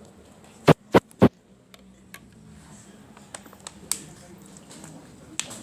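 Three sharp knocks in quick succession, about a third of a second apart, followed by faint scattered clicks.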